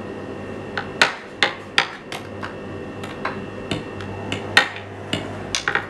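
A metal fork clicking and tapping against a small glass jar and a tray as anchovy fillets are picked out: about a dozen sharp, irregular taps.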